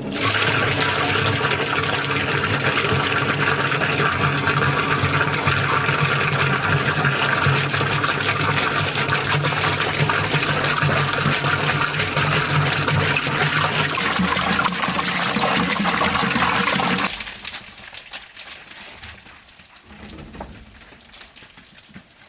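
Water gushing steadily over a low steady hum, cutting off suddenly about seventeen seconds in, after which only faint noise remains.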